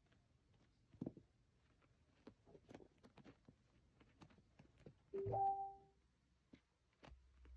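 Faint taps and scuffs of a kitten playing on carpet and a shaggy rug, with a slightly louder knock about a second in. About five seconds in comes a short, clear, steady musical note lasting under a second, and a low hum starts near the end.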